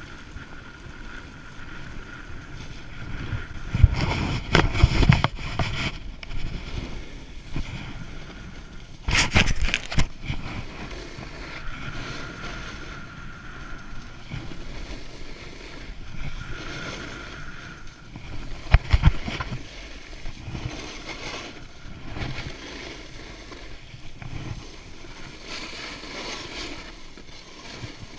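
Wind rushing over a moving action camera's microphone, with skis sliding and scraping on packed snow. The noise is steady, with several louder short bursts.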